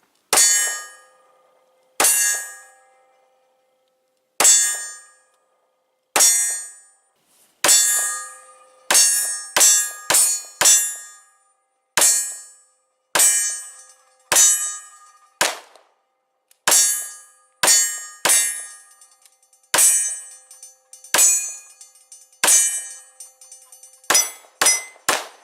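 Pistol shots fired at steel targets, about twenty in an irregular string, some in quick pairs, each sharp crack followed by the ringing clang of the struck steel plate dying away.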